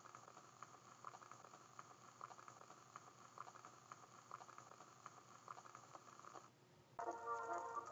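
Faint old-film crackle: scattered irregular pops over a steady hiss. About a second from the end it drops out and music starts with a click.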